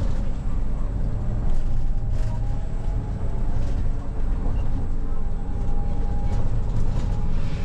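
City bus driving, heard from inside the cabin: a steady low engine and road rumble, with a faint whine about halfway through and a few light rattles.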